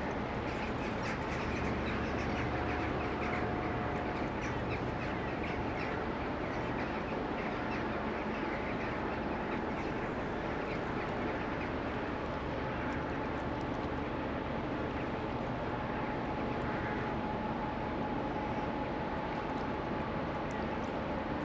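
Steady low rumble and drone of a large container ship passing on the river, with a constant humming tone running through it. Short, sharp bird-like calls sound over it, mostly in the first half.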